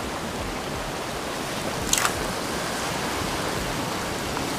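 Steady wash of ocean surf against a rocky shore, with a brief swish about two seconds in as a long surf rod is swung through a cast.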